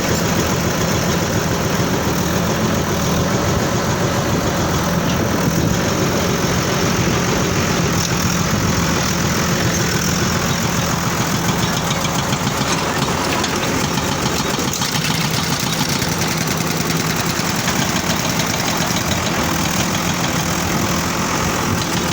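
Excavator's diesel engine running steadily, with a constant low hum under a broad mechanical clatter.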